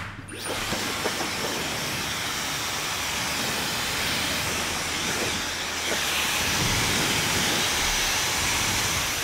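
Handheld hair dryer blowing hot air over hair: a steady rushing hiss that starts just after the beginning and runs on at an even level.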